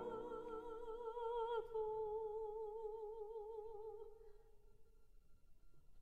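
Background music: a classical singer holds one long note with a wide vibrato, dropping slightly in pitch about a second and a half in, then fading away to almost nothing near the end.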